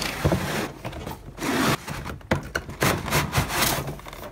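Cardboard box being opened by hand: its flaps and inner cardboard scrape and rub, with several sharp snaps and clicks in the second half.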